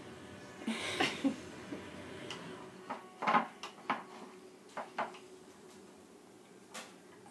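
A spoon knocking and clinking against a dish in a string of irregular taps, about a dozen in all, the loudest around one second and three seconds in.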